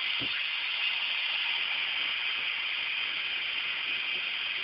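Tap water running steadily into a large coffee maker's pot: an even, unbroken hiss.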